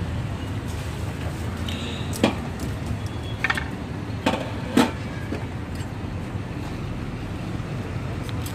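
Busy roadside market ambience: a steady hum of traffic and activity, with four sharp clacks like utensils or metal being knocked, heard between about two and five seconds in.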